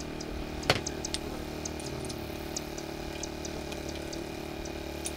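Small metal clicks of hand tools on a model glow engine and its flywheel-holding plate, one sharp click the loudest, over a steady machine drone that fades near the end.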